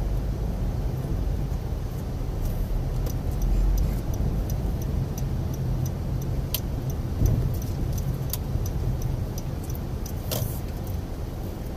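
Low road and engine rumble inside a Honda Civic's cabin while driving slowly. From about three seconds in there are light regular ticks, about two or three a second, and a single sharper click comes near the end.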